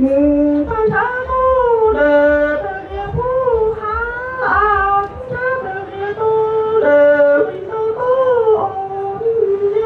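A man singing kwv txhiaj, Hmong sung poetry, solo into a microphone: a single high, wavering voice holding long notes that bend and slide between pitches, broken by short pauses between phrases.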